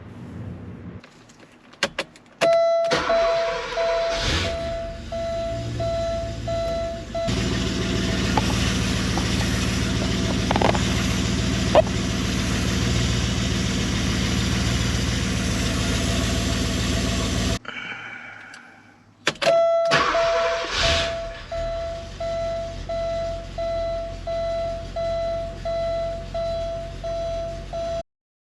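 Porsche 928 S V8 being started while the dash warning chime beeps steadily. It cranks a few seconds before catching, runs about ten seconds and cuts off suddenly. The chime starts beeping again as the key is turned once more. This is a test of the long-cranking fault after a new fuel pump check valve.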